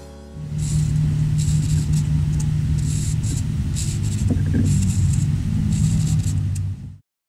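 Steady engine-like hum from the Bluetooth RC app and the converted 1:32 diecast car as it is driven from the phone with its wheels off the table, broken by short bursts of a small motor whirring and a brief rise in pitch about four seconds in. It cuts off abruptly near the end.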